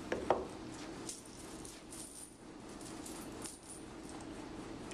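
Small maple blocks knocked and handled on a wooden workbench: one sharp knock about a third of a second in, then faint taps and clicks as the pieces are lined up for nailing.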